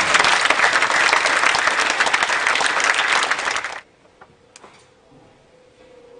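A loud, dense crackle of many rapid small clicks, cutting off abruptly just under four seconds in, followed by two faint knocks.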